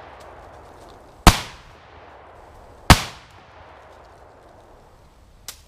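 Two 12-gauge shotgun shots firing 1-ounce slugs, about a second and a half apart, each followed by a short echo dying away.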